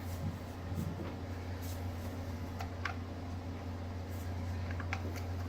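A few light clicks and taps of small parts being handled while a kitchen mixer grinder is taken apart, over a steady low hum.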